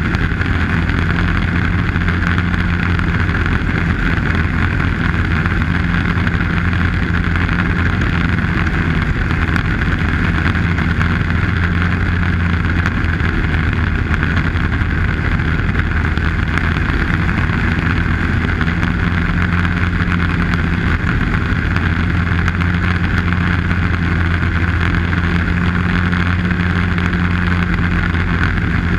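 Arctic Cat snowmobile running at a steady cruising speed, its engine a steady drone that eases slightly for a few seconds around the middle before picking back up.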